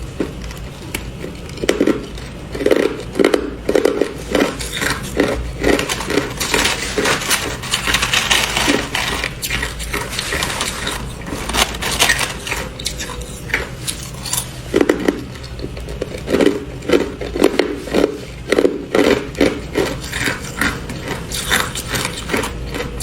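Hard clear ice being bitten and crunched: two runs of rapid sharp cracking chews, with ice cubes clinking and scraping against each other in between.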